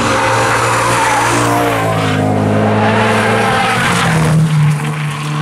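Sports car engines revving hard as cars are driven fast through a corner, with tyres skidding and squealing. About four seconds in the sound changes abruptly to another car's steady engine note.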